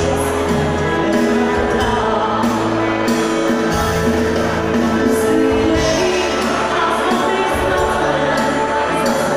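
Live band playing amplified music through the hall's PA, with held bass notes that change every couple of seconds.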